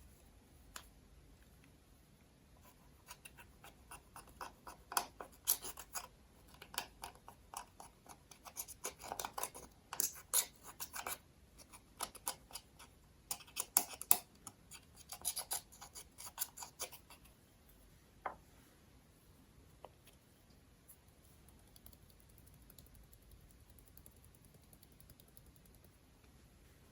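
Slime being worked by hand: a run of quick sticky clicks and crackles from about three seconds in until about seventeen seconds, then only a few faint clicks.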